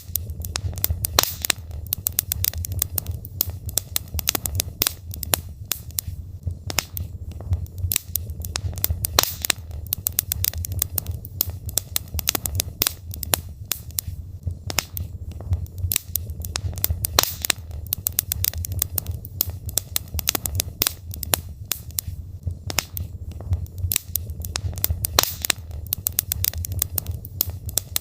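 Logs burning in a fireplace: irregular crackles and pops over a steady low rumble of the flames.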